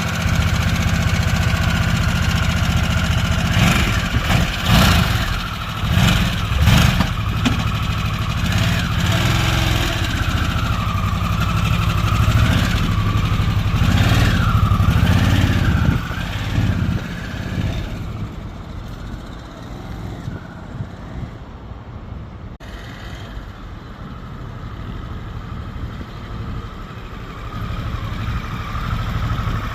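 Harley-Davidson Sportster S's Revolution Max 1250T V-twin running through its stock exhaust, with several quick throttle blips about four to seven seconds in. It settles to a steady, quieter run from about sixteen seconds in and grows louder again near the end.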